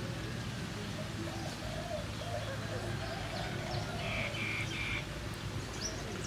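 Birds calling: short low notes repeat throughout, and a brief three-part higher call comes about four seconds in, all over a steady low rumble.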